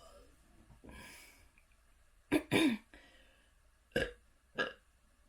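A person burping: two short burps in quick succession about two seconds in, the second falling in pitch, then two brief, softer ones near the end.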